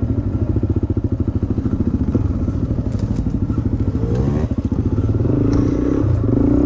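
Dirt bike engines idling with a close, even chugging beat. About four seconds in, an engine revs up as another dirt bike rides past. Then a bike pulls away with a steadier engine note.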